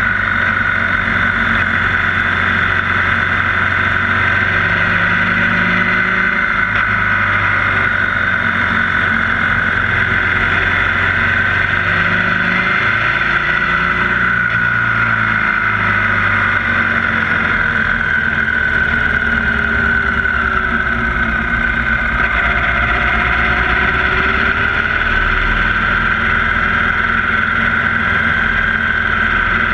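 A Victory Cross Country's V-twin engine running under way, its pitch rising and falling with the throttle through a series of curves, over a steady rush of wind.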